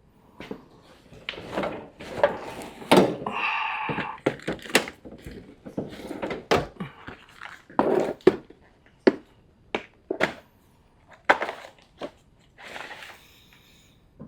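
Objects being shoved aside and set down on a workbench: a string of irregular knocks, clunks and clicks with scraping and rustling between them, and a brief squeak about three and a half seconds in.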